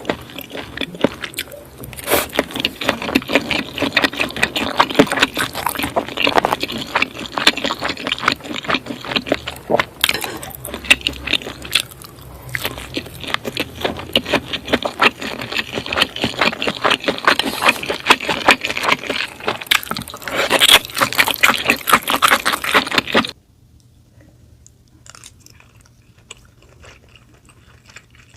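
Close-miked mouth sounds of someone chewing sushi: a dense, continuous run of small wet clicks. About 23 seconds in it cuts off suddenly to much quieter, sparse clicks.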